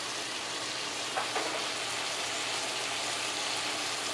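Diced squash and chicken frying in curry paste in a pot: a steady sizzle, with one short knock about a second in.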